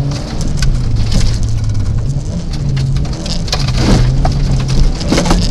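Rally car's engine running hard, heard from inside the cabin, with gravel and stones clicking and pinging against the underbody and wheel arches.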